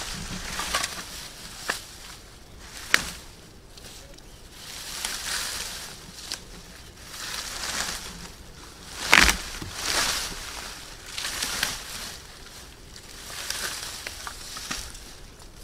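Dead tree branches rustling and scraping through leaves and grass as they are dragged and handled, in repeated swells, with several sharp cracks of wood, the loudest about nine seconds in.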